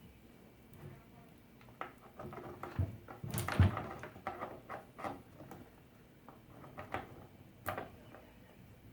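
Scattered clicks and knocks of chainsaw parts being handled: the chain, guide bar and side cover shifting against each other as the saw is put back together. A cluster of knocks comes two to four seconds in, the loudest just past three and a half seconds, then a few single clicks.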